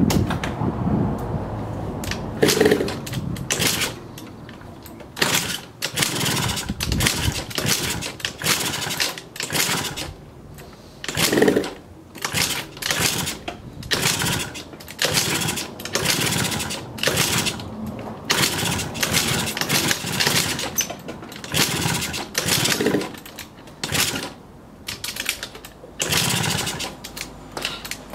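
A Yamaha Jog 50cc single-cylinder two-stroke scooter being kick-started again and again, about one kick a second. Each stroke of the kickstart lever spins the engine over in a short burst, and the engine does not start.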